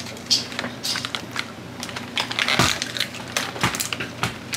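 Small plastic doll-playset accessories clicking and clattering as they are handled and set into the box's plastic tray: irregular light clicks, with a few sharper knocks.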